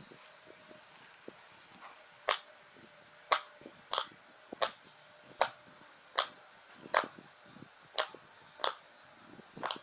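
Silicone pop-it fidget toy being pressed bubble by bubble with a finger, giving about ten sharp pops roughly one a second, starting about two seconds in.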